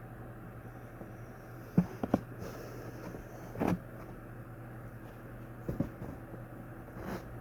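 Several short knocks and clicks of a plastic box fan being handled: two about two seconds in, a longer one near four seconds, two near six and one near the end. A steady low hum runs underneath.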